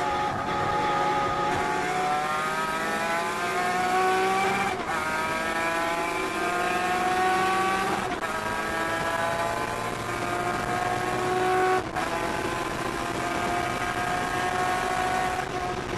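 Datsun 240Z race car's straight-six engine heard from inside the cabin, accelerating hard through the gears. The engine note climbs steadily, drops with an upshift about five, eight and twelve seconds in, and climbs again after each.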